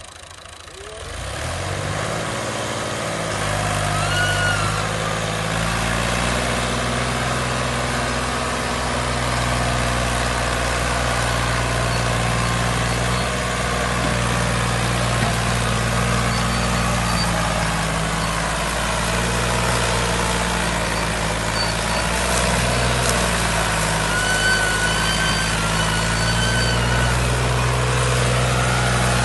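Heavy farm machine's engine running steadily. It swells up over the first couple of seconds, then holds an even low drone. A few short high chirps sound over it.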